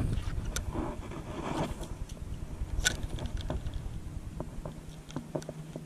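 Wind rumbling on the microphone, with scattered light clicks and taps from handling a spinning rod and reel on a plastic kayak; the sharpest click comes about three seconds in, and the wind rumble eases near the end.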